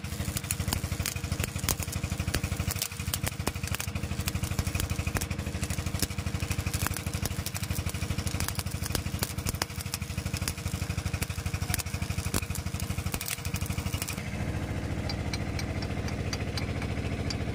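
An engine idling steadily under a dense, irregular crackle of arc welding. The crackle stops about 14 seconds in, leaving the engine running with a lighter ticking.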